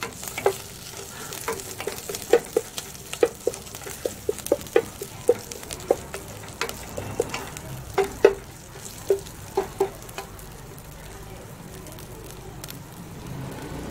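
Wooden spatula stirring and knocking against an enamel pot as curry leaves, pandan and sliced green chillies fry in oil, with a light steady sizzle underneath. The knocks stop about ten seconds in, leaving only the sizzle.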